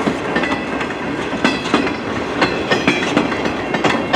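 CN freight train's cars rolling past, steel wheels clicking and clanking irregularly over the rail joints against a steady rumble.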